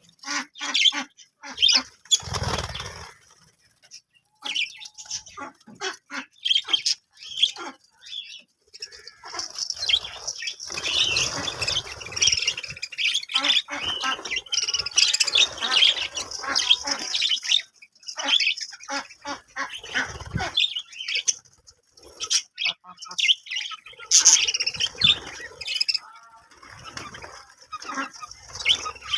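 A flock of budgerigars chirping and chattering continuously in quick, high, irregular calls, with a few short low rustling bursts among them.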